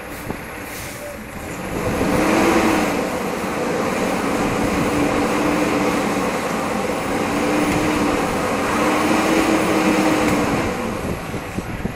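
A vehicle engine revving hard while its tires spin on ice, giving a wavering whine. It swells about two seconds in, holds for some nine seconds and eases off near the end.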